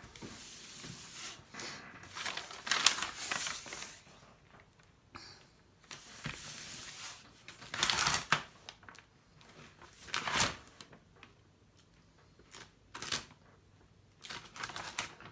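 Rustling and crinkling of a large canvas being handled and rolled up, in uneven bursts with small clicks and knocks, louder patches about three, eight and ten seconds in.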